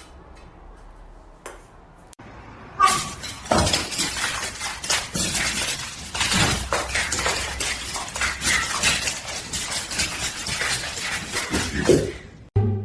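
Continuous clattering and clinking, like hard objects knocking together, starting about three seconds in and keeping up a dense run of sharp knocks until shortly before the end.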